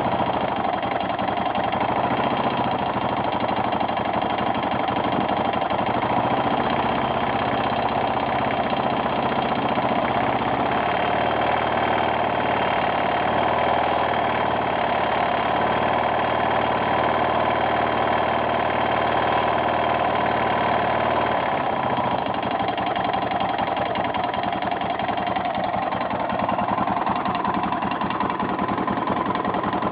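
Yamaha XT600E's single-cylinder four-stroke engine running steadily, with the knocking, clattering noise that its owner cannot account for.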